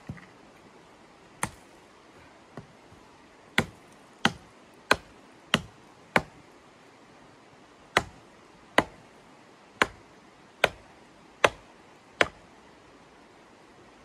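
A series of about a dozen sharp, dry knocks, each dying away quickly. A few scattered ones come first. From about three seconds in they fall into a steady pace of roughly one every two-thirds of a second, pause briefly, then go on a little slower.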